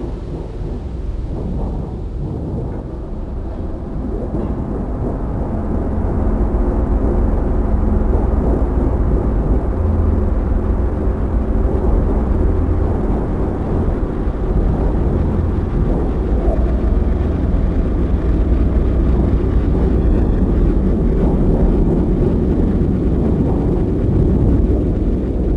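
Low, rumbling ambient drone of an animation soundtrack, with a few faint held tones, swelling louder about five seconds in and then holding steady.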